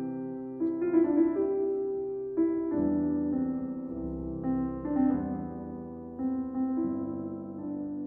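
Grand piano playing a slow, soft classical passage alone, the violin silent: notes and chords struck one after another, each left to fade.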